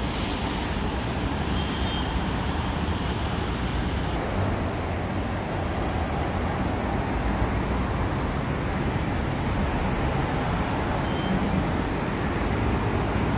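Steady road traffic noise: a continuous hum of many cars on a city street, with no single vehicle standing out.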